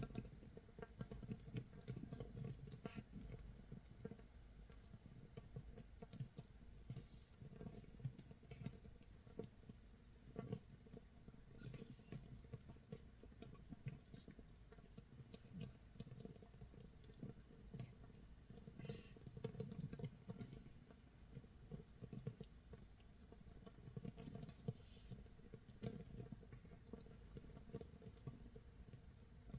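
Makgeolli starter mash (mitsul) fermenting in a jar after 24 hours: a faint, dense, irregular crackle of tiny pops as carbon dioxide bubbles burst, like rain or toasting scorched rice.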